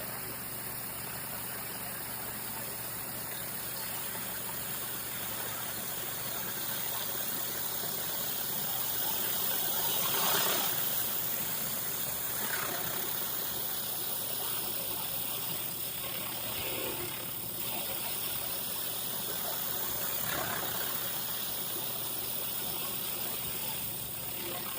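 A commercial pressure washer running steadily: its engine drone under a continuous high-pressure water spray, a little louder about ten seconds in.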